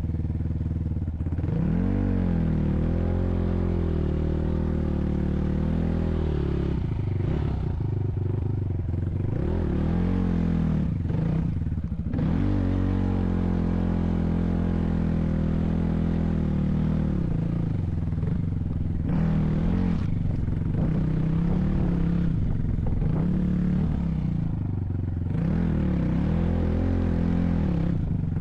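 Vehicle engine running under changing load, its pitch rising and falling again and again as the throttle is worked.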